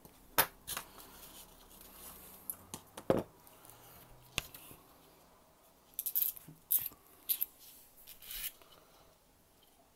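Hobby knife cutting and scraping moulding flash off the plastic fuselage halves of a 1:72 Spitfire kit on a cutting mat: scattered sharp clicks and short scrapes, with a quick run of scraping strokes about six to eight seconds in.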